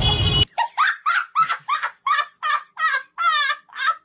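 Dog yelping, a rapid run of short high cries at about three a second. Outdoor background noise cuts off abruptly about half a second in, leaving only the yelps.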